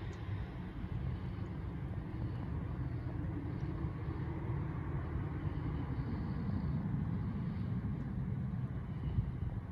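Jet airliner taxiing at a distance: a steady low rumble of its engines at low power, with a faint high whine above it.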